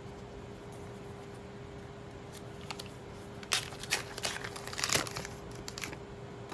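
A foil trading-card booster pack wrapper being crinkled and torn open: a quick flurry of sharp crackling rustles about halfway through.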